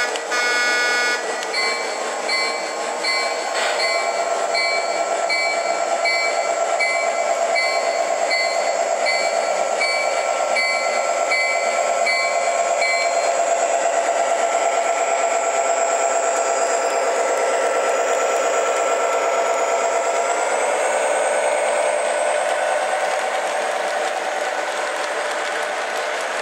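Model diesel switcher locomotive's sound system: a short horn blast, then its bell ringing steadily for about eleven seconds. Under it runs a steady engine hum that rises in pitch about twenty seconds in as the locomotive moves off with its train.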